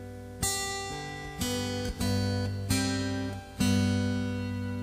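Acoustic guitar strumming chords with no singing. There are about five strokes, each left to ring, and the last and loudest, near the end, is held and fades slowly.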